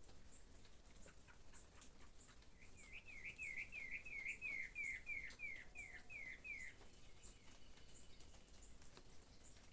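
A songbird sings one phrase of about a dozen quick, repeated down-slurred notes, lasting about four seconds. A faint high chirp repeats steadily about two or three times a second, over a faint patter of rain.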